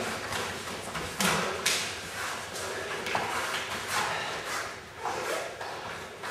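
Sparring footwork on foam mats: a run of quick scuffs and thuds from feet sliding and landing, with a few sharper knocks of contact between the fighters.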